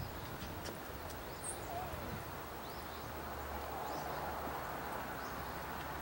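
Outdoor ambience: a bird gives a few short, high chirps over a steady background hiss and low hum.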